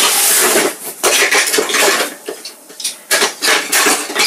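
Handling and rummaging through a box of small keepsakes: rustling, with small hard objects clicking and clinking against each other.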